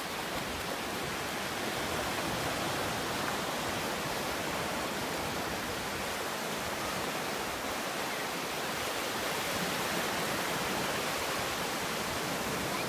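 Small waves breaking and washing up a sandy beach: a steady, even rushing hiss of surf.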